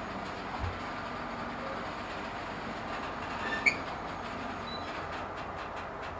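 Freight train being shunted, a long string of wagons rolling with a steady rumble. A single sharp metallic squeak comes a little past halfway, and a quick run of clicks follows near the end.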